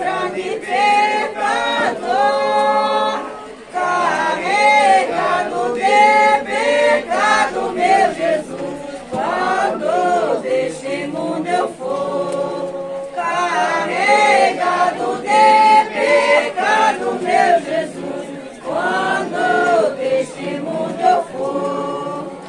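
A group of voices singing a Portuguese Catholic sung prayer (reza cantada) to Saint Anthony together: a slow hymn in long held notes, in phrases a few seconds long with short breaks between them.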